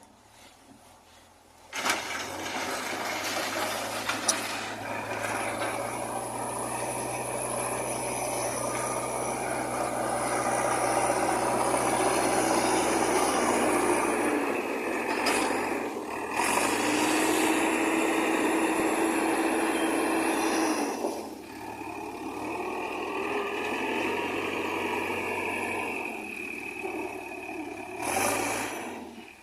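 JCB backhoe loader's diesel engine running under working load, with a steady whine over the engine note. The sound starts about two seconds in, shifts in pitch twice along the way, and dies away near the end.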